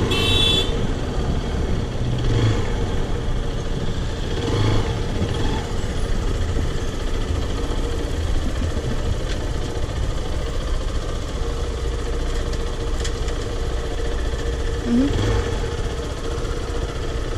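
Zontes X1 350's single-cylinder engine running steadily during a ride, with a short high-pitched beep at the very start.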